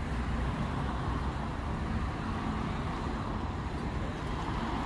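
Steady low rumble of vehicle engines and street traffic, even in level throughout.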